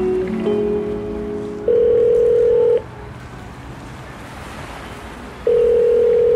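Two long, steady, single-pitch beeps of about a second each, some three seconds apart, after the tail of a music track.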